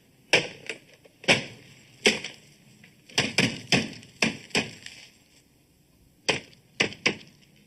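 A series of about a dozen sharp knocks, irregularly spaced, in small clusters with short pauses between them.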